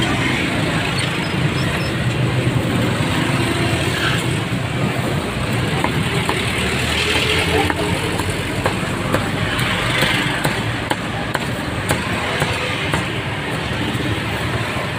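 Busy street ambience: steady traffic noise from passing vehicles, with background voices and scattered short clicks and knocks.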